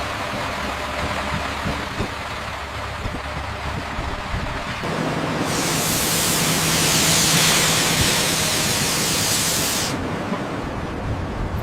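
Steady mechanical rumble with a low hum, then a loud hiss that comes on abruptly about five and a half seconds in and cuts off sharply about four seconds later.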